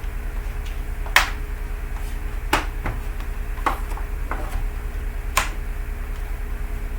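Several sharp clicks and taps, irregularly spaced about a second apart, over a steady low electrical hum.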